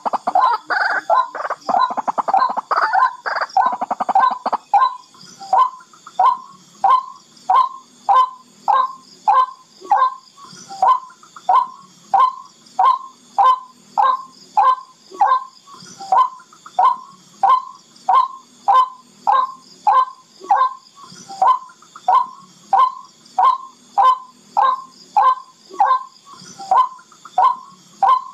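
Barred rail (tikling) calling: a fast, crowded run of notes for about the first four seconds, then a steady series of short notes, about two a second. This is the call played as a lure to draw the birds in.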